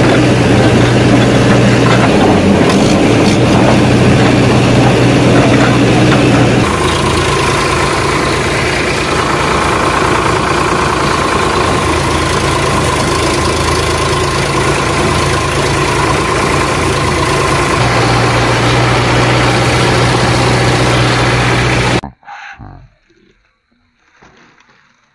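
Vehicle engine running steadily, its note changing about seven seconds in, then cutting off suddenly near the end.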